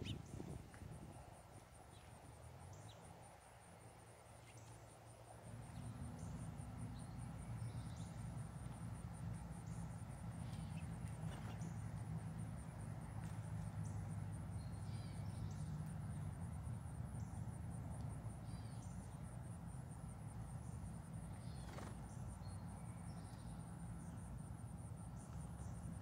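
A steady, fast-pulsing high-pitched insect trill runs throughout, with short bird chirps here and there. A low hum comes in about five seconds in and holds on.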